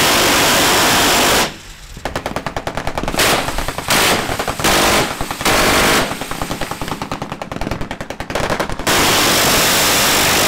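Quad-mounted M134 7.62 mm six-barrel miniguns firing. A long unbroken burst cuts off about a second and a half in. Then come a few short bursts under a second each, with rapid separate machine-gun shots between them. Another long unbroken burst starts about two seconds before the end.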